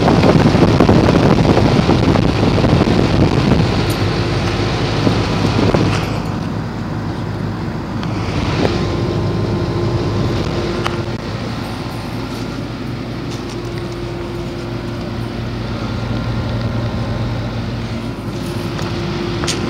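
1969 Lennox central air-conditioner outdoor unit running, its compressor and fan making a steady hum. A louder rushing noise covers the first six seconds or so.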